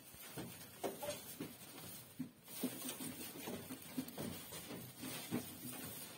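Doe rabbit rustling and crackling through dry straw bedding in irregular short bursts as she gathers and arranges material for her nest before giving birth.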